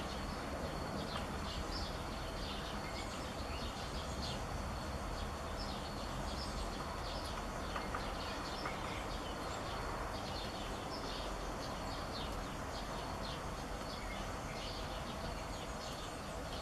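Outdoor ambience: a steady background hiss with many short, high bird chirps scattered throughout.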